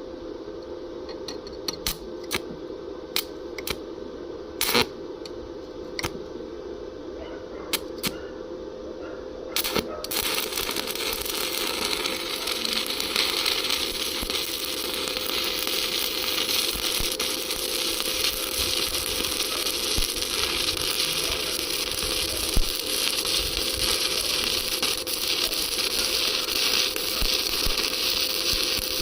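Electric welding arc crackling and sizzling steadily while laying a first weld pass, starting about ten seconds in after a few sharp, separate clicks. A steady hum runs underneath.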